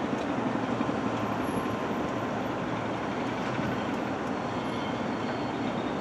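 Jet engines of a Boeing 787 (Rolls-Royce Trent 1000s) at takeoff thrust as the airliner accelerates down the runway and rotates, a steady roar.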